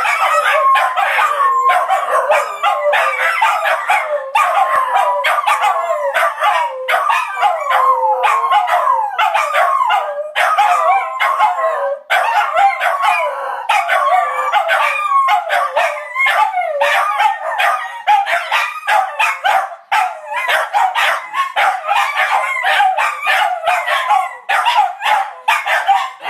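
Three terriers, among them a West Highland white terrier and a Cairn terrier, howling together in loud, overlapping, wavering howls that rise and fall in pitch, with only a couple of brief breaks.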